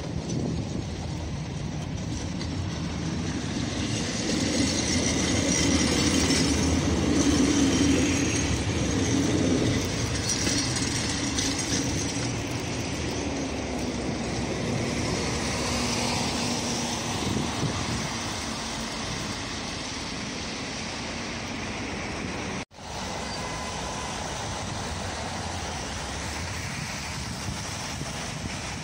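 Tram running on its rails along a snowy street among car traffic: a steady rumble of wheels and motors that swells about five to ten seconds in and then eases off. About 23 seconds in the sound cuts out for an instant, then steady street traffic noise goes on.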